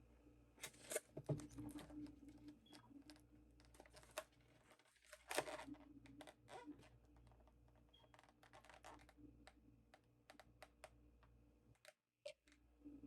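Faint, scattered clicks, taps and rustles of things being handled close by, irregular and with short pauses between them.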